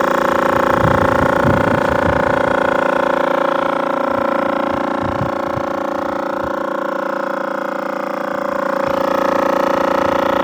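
Motor-driven rig running the converted refrigerator compressor, a steady machine hum with a strong whine in it, with a few low knocks in the first half.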